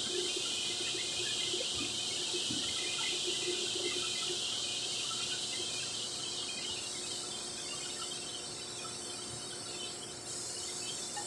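Steady machinery noise in a printing plant: an even hiss with a low, steady hum under it. The hiss eases off somewhat after the middle.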